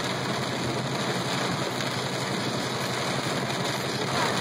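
Heavy monsoon rain and wet road noise heard from inside a moving car's cabin, a steady hiss over the low hum of the engine.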